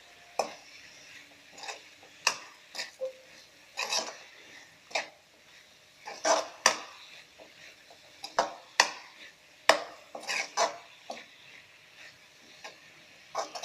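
Potato and capsicum being stirred in a cooking pan: a utensil scraping and knocking against the pan in irregular strokes, roughly one or two a second.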